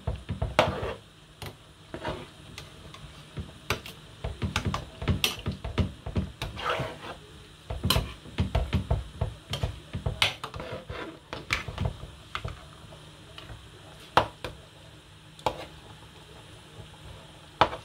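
A long metal spoon stirring a pot of fish stew, clinking and knocking irregularly against the metal pot's sides and bottom.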